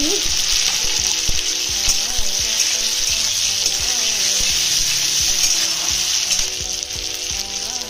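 Chopped tomatoes, capsicum and green chillies sizzling in hot mustard oil in a metal kadhai, a steady frying hiss. A spatula scrapes and knocks against the pan now and then as the vegetables are stirred.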